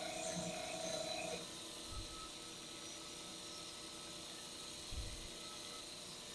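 A power tool used to polish a steel knife blade runs with a steady whine that stops about a second and a half in. After that only a faint steady hum remains, with two soft thumps.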